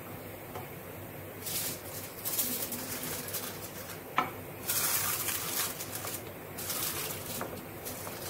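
Aluminium foil crinkling and rustling in irregular bursts as a sheet is pressed and crimped over a clay bowl, with one sharp click about four seconds in.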